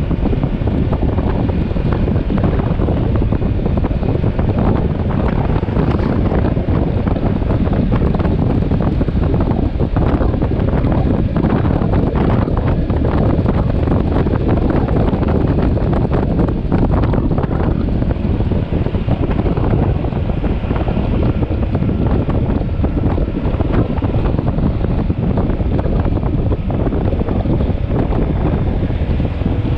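Loud, steady wind rush on the microphone of a motorcycle being ridden, with the motorcycle's running engine blended in underneath.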